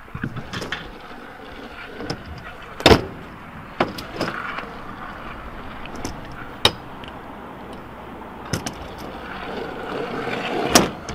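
Stunt scooter wheels rolling over tarmac and ramps, broken by several sharp clacks of the scooter landing and striking the ramps, the loudest about three seconds in.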